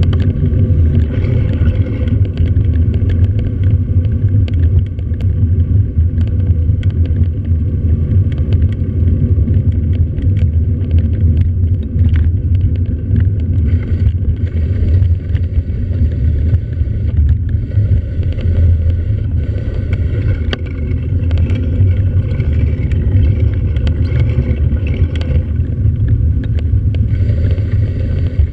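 A vehicle driving, heard from a camera mounted on it: a steady low rumble of engine and road noise, with small clicks and knocks scattered throughout.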